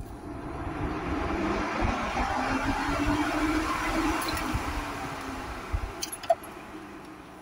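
2008 Ford Edge's electric radiator cooling fan starting up and running, driven by a PWM test signal fed through the reconnected fan relay connector: the fan motor and relay work. The fan noise builds in the first seconds, then slows and fades in the second half, with a few light clicks about six seconds in.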